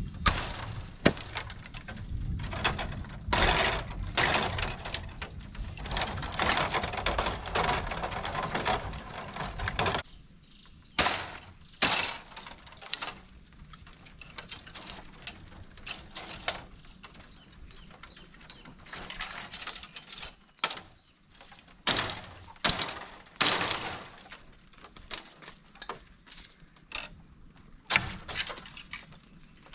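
Repeated sharp cracks and snaps of thorny bamboo branches being broken and cut during clearing, coming irregularly and thickest in the first ten seconds, over a steady high-pitched hum.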